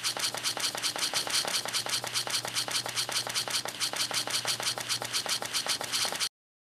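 Intro sound effect of rapid, even clicking, roughly seven clicks a second, like a camera shutter or ratchet firing over and over, with a faint low hum beneath. It cuts off suddenly near the end.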